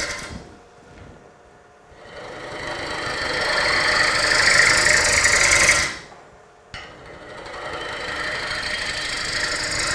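Bowl gouge, its wing rolled over and used as a scraper, cutting the face of a spinning Bradford pear bowl on a wood lathe. Two scraping passes: the first swells up about two seconds in and stops at about six seconds, and after a short quieter gap and a click the second runs on.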